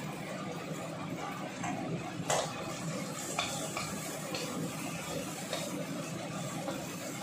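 A wooden spatula stirring in a black wok, with a few sharp knocks against the pan, over a steady low hum.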